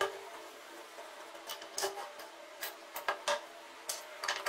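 Short metallic clicks and knocks as an angle grinder's guard, flange and spindle parts are handled and taken apart on a wooden bench, about eight or nine in all, over a steady faint hum.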